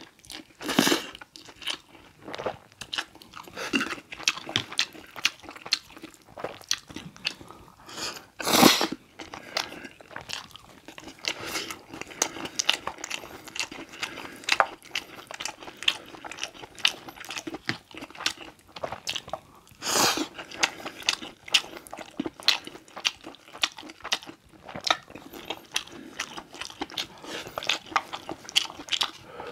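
Close-miked eating of Carbo Buldak instant noodles: steady wet chewing and slurping with many small mouth clicks. Several louder slurps stand out, about a second, nine seconds and twenty seconds in.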